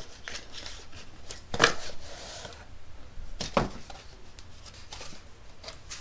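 A cardboard box and its paper and plastic contents being handled and pulled out: rustling and sliding, with two sharper knocks, one nearly two seconds in and one a little past the middle.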